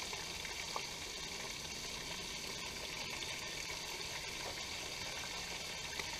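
Food frying in a pan: a steady sizzle with a few faint clicks.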